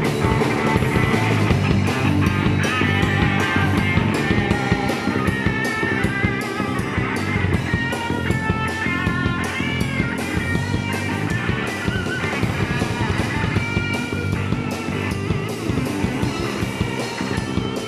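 A live rock band playing an instrumental passage: an electric guitar lead with bent, wavering notes over a steady drum-kit beat.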